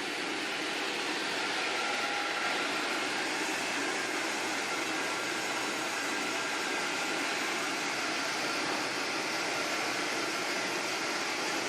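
Sawmill saw running steadily through a nyatoh log, a continuous even machine-and-cutting noise.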